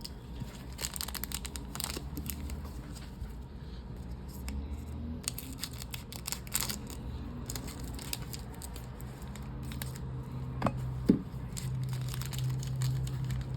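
Foil trading-card booster pack being cut and torn open, its wrapper crinkling and crackling in irregular bursts.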